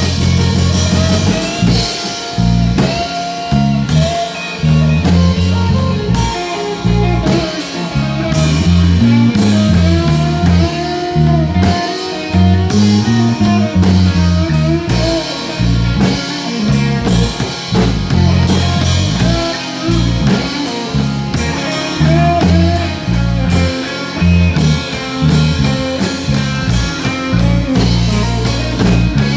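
Live blues-rock band playing an instrumental passage without vocals: a guitar lead with bending notes over a walking low bass line and a drum kit.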